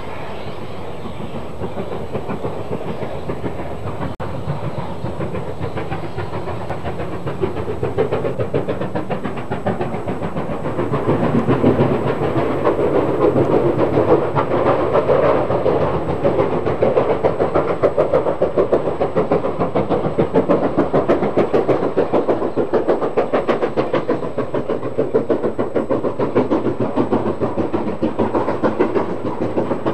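LMS Stanier Black Five 4-6-0 steam locomotive No. 44871 working a passenger train, its two-cylinder exhaust beating rapidly and evenly. It grows louder between about eight and twelve seconds in as the engine draws nearer.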